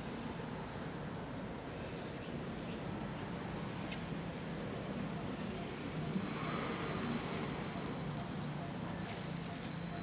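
Outdoor ambience of a bird repeating a short, high chirp about once a second over a steady low background hum.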